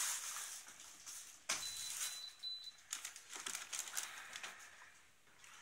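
A sharp click about a second and a half in as the De'Longhi DDS20 dehumidifier is plugged in, followed by a faint, high electronic beep lasting about a second as it powers up and its display lights. After that, plastic wrapping crinkles lightly.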